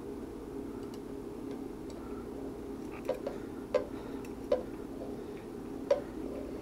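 Four light taps in the second half, the edge of a folded piece of paper tapping on a tile floor, over a steady low room hum.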